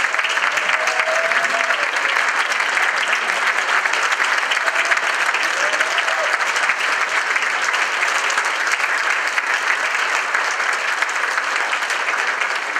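Large audience applauding, dense steady clapping throughout, with a faint voice briefly calling out over it about a second in and again around six seconds.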